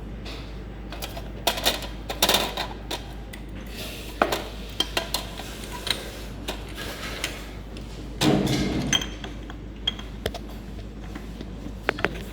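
Small metal parts and tools clinking and knocking against each other, in scattered separate strikes, with a louder clatter lasting about a second roughly eight seconds in.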